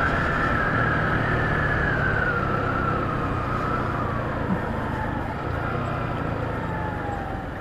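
Motorcycle engine running on the move, with a high whine that slowly falls in pitch as the bike slows.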